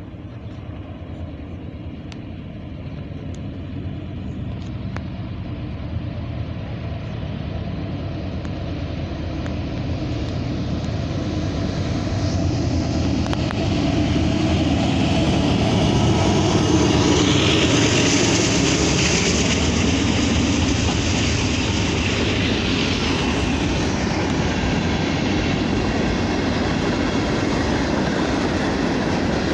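Norfolk Southern train approaching, its rumble growing steadily louder for about fifteen seconds, then running past at a steady loud level.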